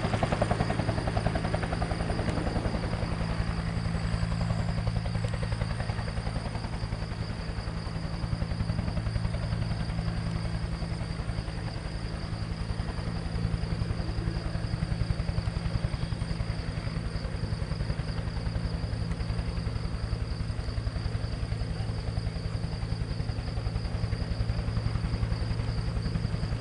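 Bell 212 helicopter running steadily: a fast, even rotor beat over a low drone, with a steady high turbine whine above it. It is a little louder in the first couple of seconds.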